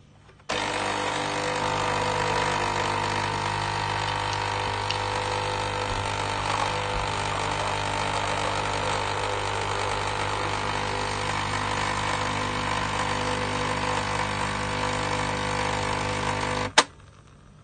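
Nescafé Dolce Gusto Mini Me capsule machine's pump running steadily while brewing a milk capsule, with milk streaming into the glass. It starts about half a second in and cuts off with a click near the end.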